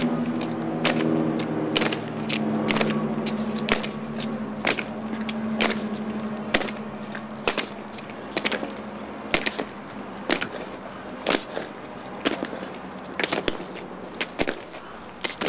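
Measured, sharp footsteps on a hard surface, about one a second, with a held low chord dying away by about halfway.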